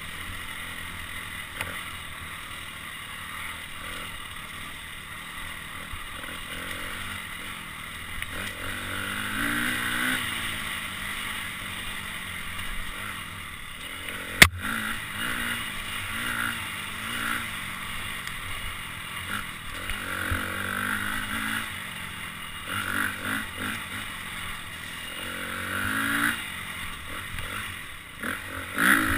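Dirt bike engine heard from the rider's helmet camera on rough single track, revving up and dropping off again and again as the rider works the throttle, with clatter from the trail. A single sharp knock about halfway through is the loudest sound.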